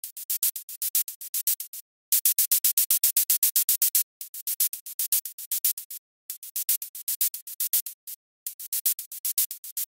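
Soloed synthesized shaker pattern from the u-he Hive software synth, playing quick sixteenth-note hits, about eight a second, thin and hissy with no bass, broken by a short gap about every two seconds. The hits swell and dip in level within each bar, pumping from sidechain compression.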